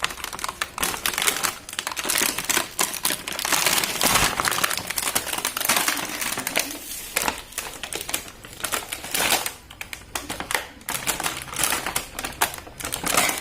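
Plastic packaging crinkling, with dense rapid clicks and taps of plastic parts and cardboard, as a toy washing machine is unpacked from its box.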